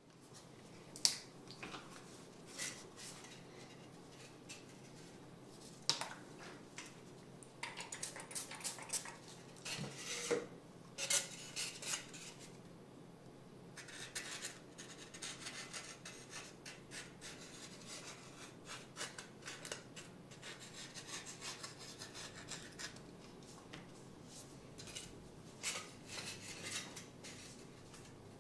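Faint scattered rubs, scrapes and light clicks as foam model-aircraft sections, a masking tape roll and glue bottles are handled at a table. Busier clusters come about six seconds in and again around ten to twelve seconds.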